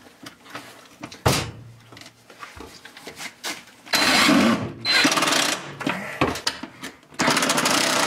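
Bostitch cordless impact driver hammering pocket-hole screws into wood in bursts of about a second each, one short burst about a second in and three longer ones in the second half.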